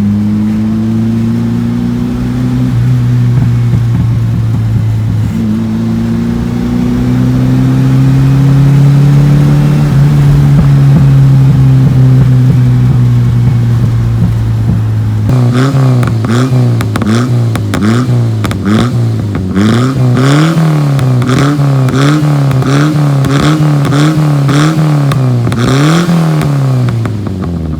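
Toyota KP30's 4K four-cylinder engine through a new welded extractor exhaust. It first runs steadily with the pitch slowly climbing, then from about halfway it is revved in quick blips, about one a second, with sharp pops from the exhaust.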